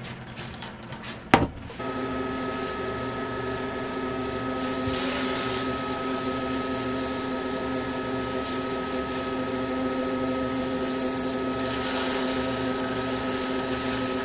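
A sharp click about a second in, then a motor starts and runs with a steady multi-tone hum and whine under a spinning wood lathe. From about five seconds in comes a rubbing hiss: paper towel pressed against the spinning spalted beech lid, buffing the cellulose sanding sealer.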